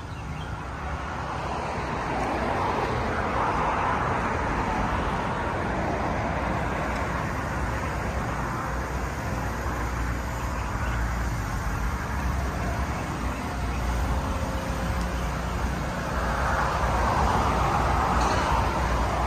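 Road traffic going by: a steady rumble of cars, swelling as a vehicle passes about three seconds in and again near the end.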